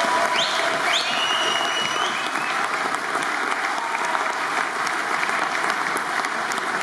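Audience applauding steadily, with a few short high rising tones in the first two seconds.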